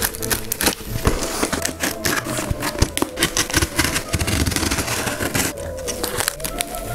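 Box cutter slicing through packing tape on a cardboard box: a dense run of scratching, crackling tape and scraping cardboard. Near the end the box flaps are pulled open.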